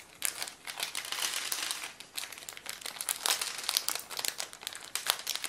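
Small clear plastic parts bag crinkling in the hands, handled and opened in a rapid run of irregular crackles.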